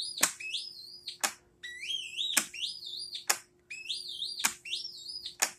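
Hulda Clark syncrometer's audio oscillator sounding a series of high-pitched rising tones, each stepping up in pitch and cut off by a click, about one a second. It is screechy, high pitch, the sound that signals a positive test result.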